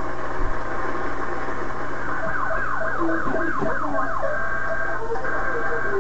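Several alarm clocks going off at once: a jumble of warbling and steady beeping tones, heard through a television's speaker.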